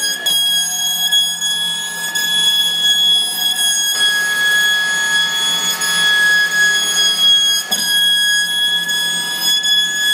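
CNC router spindle running with a steady high-pitched whine while milling plywood, over a hiss of cutting noise.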